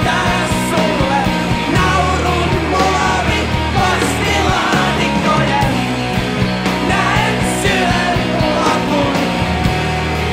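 Rock band playing: electric guitar, bass guitar and drums, with a driving drum beat under a moving bass line.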